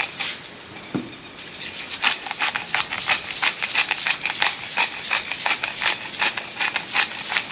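Hand-twisted seasoning grinder grinding over raw fish fillets: a fast, uneven run of dry ratcheting clicks, several a second.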